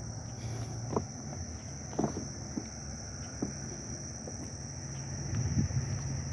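Steady high-pitched chorus of crickets or other insects, with a few short light knocks and clicks scattered through it.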